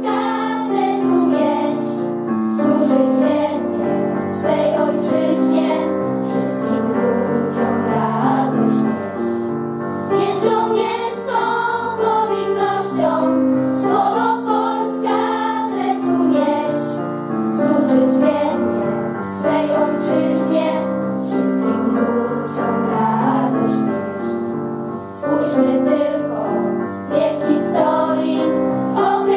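A children's choir of girls singing a slow song together, over sustained instrumental accompaniment that sounds like keyboard or piano chords.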